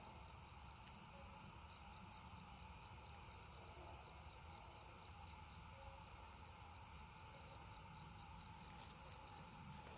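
Faint chorus of night insects such as crickets: a steady, high, pulsing trill with a fainter lower drone beneath it.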